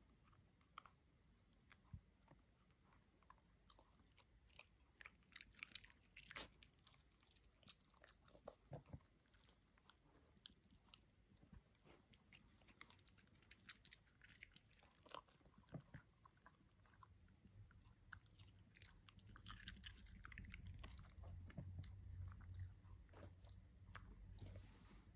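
Cairn terrier chewing blueberries: faint, scattered wet clicks and crunches in small clusters. A low rumble sets in for the last several seconds.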